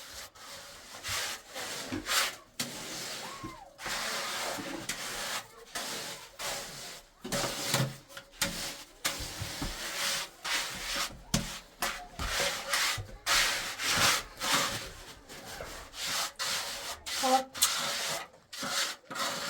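Repeated rasping scrapes of a hand tool working over cement, in irregular strokes with short pauses.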